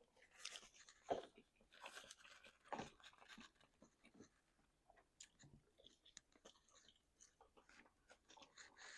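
Quiet, close-up chewing and biting of chicken wings, with crunching: a few louder bites in the first three seconds, then softer, scattered mouth clicks.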